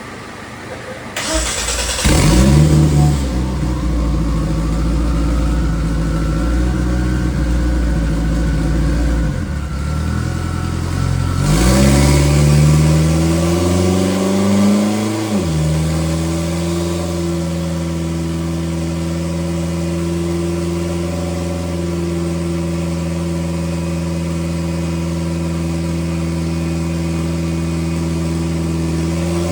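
Race car engine catching about two seconds in and running, then revving up for a few seconds around the middle, dropping back and holding a steady speed to the end.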